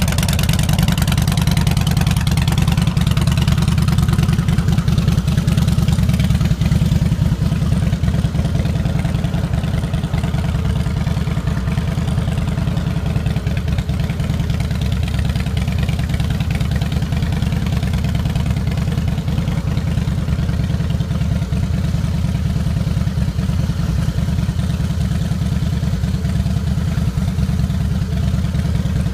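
A 2004 Harley-Davidson Fat Boy's fuel-injected Twin Cam 88B V-twin running at a steady idle through its chrome dual exhaust, a continuous low, pulsing beat.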